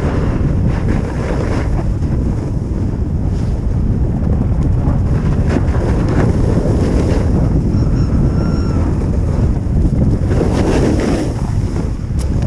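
Wind buffeting an action camera's microphone at speed, with the hiss and scrape of edges sliding on packed snow; the scrape swells louder near the end with a turn.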